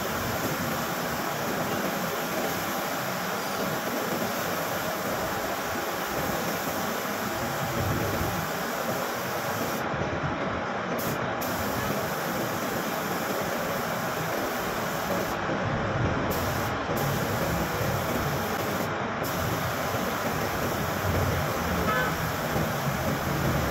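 Steady hiss of compressed air through a gravity-feed paint spray gun spraying black paint onto a car door.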